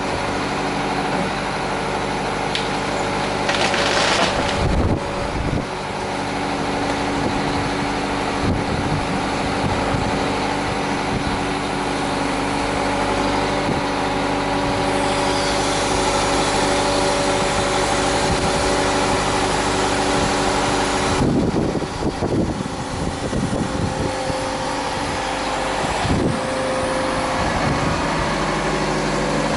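An engine running steadily, with brief louder noisy stretches about four seconds in and again a little after twenty seconds.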